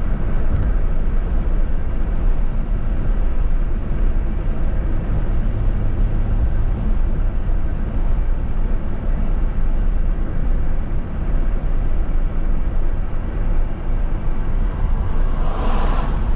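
Steady road and wind noise of a vehicle travelling at highway speed, a dense low rumble throughout. Near the end a brief louder whoosh rises and fades.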